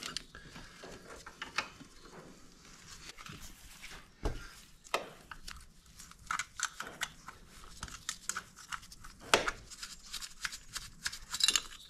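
Scattered light clicks and knocks of hand tools and small metal parts being worked on an ATV engine during disassembly, with a few sharper clicks around the middle and a quick run of clicks near the end.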